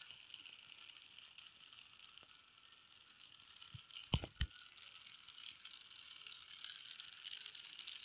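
Battery-powered Magic Tracks toy car running along its plastic track, its small motor and wheels making a faint, steady high-pitched whirring rattle. A couple of sharp clicks about halfway through.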